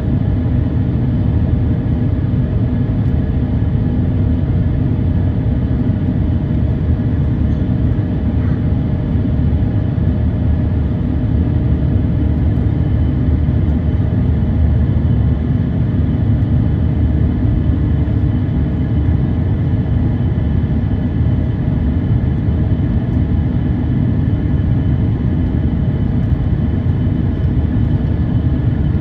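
Cabin noise of an Airbus A350-900 climbing after takeoff, its Rolls-Royce Trent XWB engines and the airflow making a steady, deep rumble with faint even tones above it.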